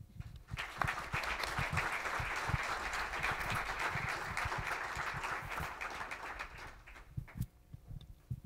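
Audience applauding for about six seconds, then dying away, with a few scattered knocks near the end.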